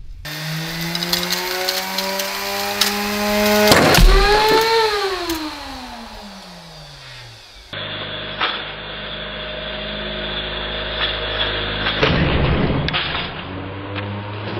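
The motor driving a 9-inch grinding disc whines and climbs slowly in pitch as the disc spins up to overspeed. About four seconds in the disc bursts with a loud bang, and the whine then falls steadily in pitch as the machine winds down. After an abrupt cut the motor's steady whine is heard again from farther off, with a sharp crack near the end as the disc breaks apart.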